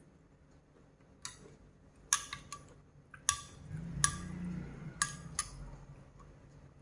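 Metal spoon clinking against a small glass bowl of dipping sauce while scooping: a series of sharp, irregularly spaced clinks, each ringing briefly.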